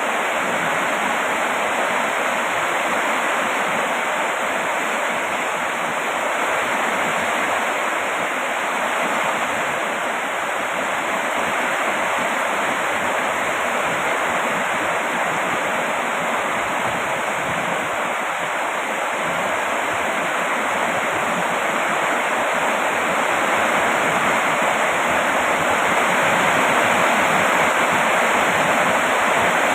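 Heavy rain falling steadily, an even hiss of water with no single drops standing out, growing slightly louder near the end.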